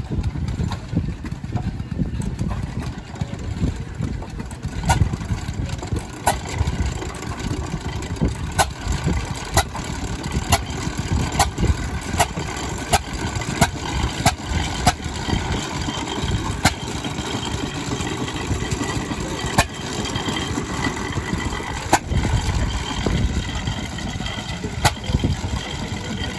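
A 6 horsepower International Famous stationary engine runs the old hay press, with a steady low chugging and sharp clacks at uneven gaps of a second or two.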